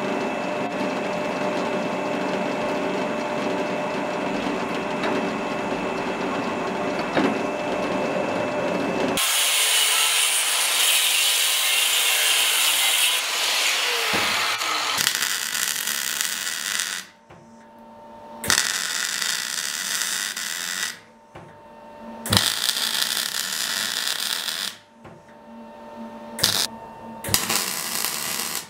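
Bench drill press drilling through a sheet-steel scabbard part, a steady running whine with cutting noise, for about the first nine seconds. Then a loud, harsh hiss takes over, and in the later part it breaks into several short bursts of MIG welding with brief pauses between them.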